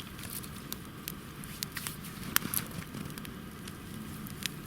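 Campfire crackling: scattered sharp snaps and pops at irregular intervals, the loudest about two and a half seconds in.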